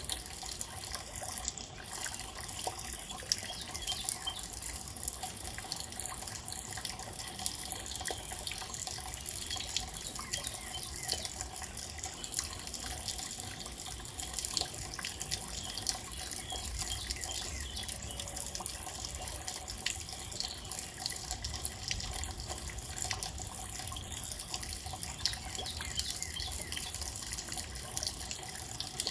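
Steady rain with close drops and drips: an even hiss dotted with many small, irregular ticks.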